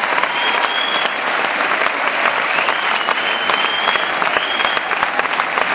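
Audience clapping, a dense steady applause, with a thin high tone coming and going above it.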